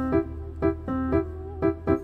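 Background music: a light keyboard melody of short, pitched notes, a few a second, over a steady low bass.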